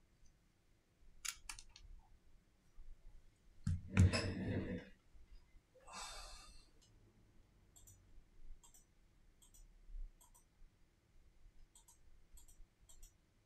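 Handling noise from a smartphone repair. A few sharp clicks of a tool on the phone's frame come first. About four seconds in there is a thud and a rustle as the phone is put down on a silicone work mat, then a shorter rustle, and after that only faint scattered ticks.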